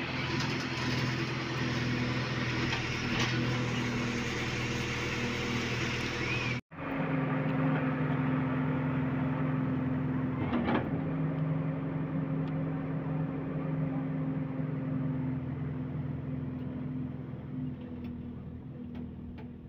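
Steady mechanical hum with a low, even drone, which cuts out abruptly for an instant about a third of the way through.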